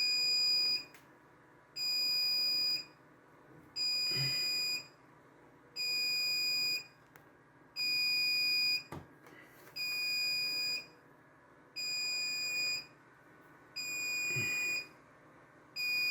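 RAID controller's audible alarm beeping: a high steady tone about a second on, a second off, over and over, the controller's warning that an array is degraded after a drive failure.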